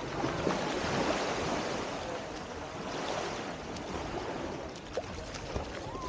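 Small waves lapping and washing over sand at the water's edge, a steady wash that swells a little about half a second in and again around three seconds.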